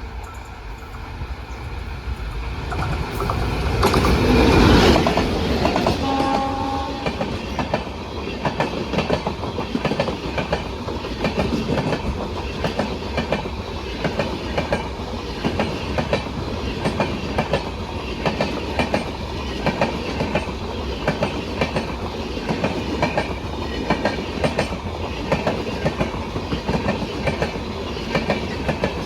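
Train running through a station at speed: the locomotive comes up and passes about four seconds in, a short horn sounds about six seconds in, then the coaches roll by with a steady clickety-clack of wheels over the rail joints.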